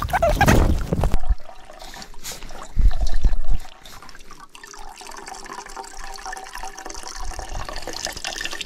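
Rough low rumbling in the first second and again briefly about three seconds in, then water from a Sawyer squeeze filter trickling steadily into a small metal cook pot as the pot fills.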